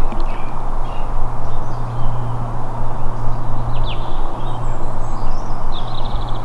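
Small birds chirping a few short notes, with a quick trill near the end. Under them runs a steady low rumbling noise.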